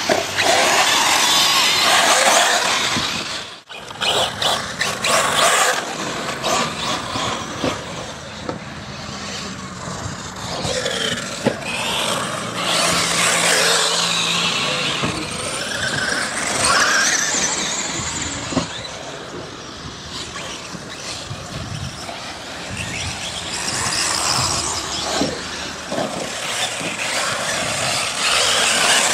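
Electric radio-controlled off-road cars, a Traxxas E-Revo among them, racing on a dirt track. Their motors and drivetrains give a high whine that rises and falls with the throttle, over the hiss of tyres on loose dirt. The sound breaks off briefly about three and a half seconds in.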